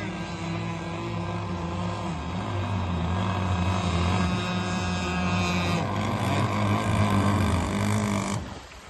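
Radio-controlled race boat running at speed on the water, a steady motor drone that cuts off abruptly near the end.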